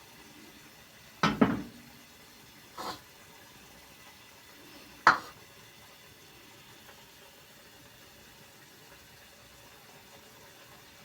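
Kitchen pots and utensils knocking and clinking: two quick knocks about a second in, a lighter one a second and a half later, and a sharp clink near the middle, then only a faint hiss.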